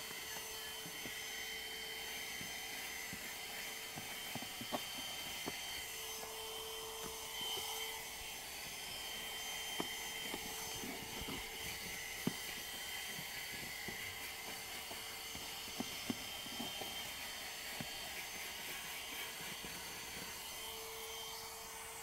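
Agaro CV1079 12 V car vacuum cleaner running steadily: an even motor whir with a faint held whine. Occasional small clicks come as the hose nozzle works over a sandy rubber floor mat.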